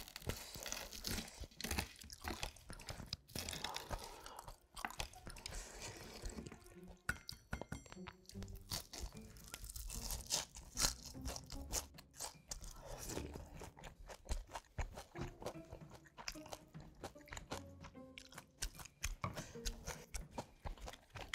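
Close-miked eating: crisp pan-fried minari and shrimp pancake and braised spicy chicken being bitten, crunched and chewed in many irregular crackles, with soft music underneath.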